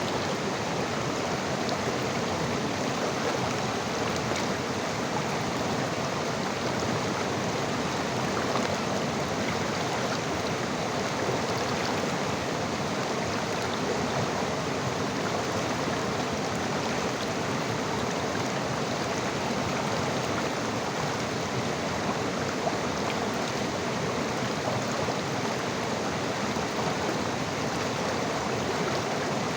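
River water rushing steadily over its bed, an even unbroken rush with no change in level.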